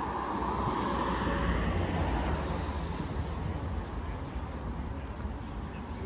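A road vehicle driving past, loudest about one to two seconds in and then fading into steady outdoor traffic noise.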